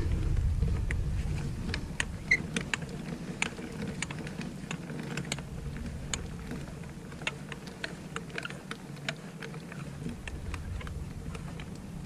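A ratchet handle clicking irregularly as it turns a torque multiplier, working a frozen wheel lug nut loose, over a steady low rumble.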